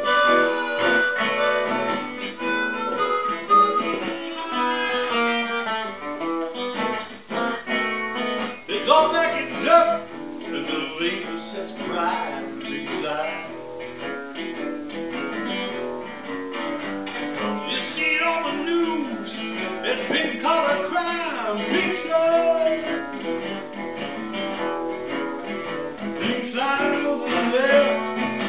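Blues instrumental break on harmonica and acoustic guitar: the harmonica leads with held and bent notes at first, then the acoustic guitar takes over, picking a lead. Near the end a man's singing voice comes back in over the guitar.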